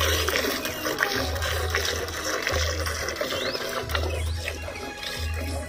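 Cow being milked by hand, the milk streams squirting into a pail in a steady repeating rhythm.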